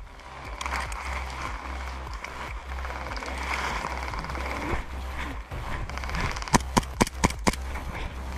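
Rustling of grass and undergrowth over a low steady rumble as a player moves through the brush. From about six and a half seconds in comes a quick string of six or seven sharp snaps from an airsoft pistol firing.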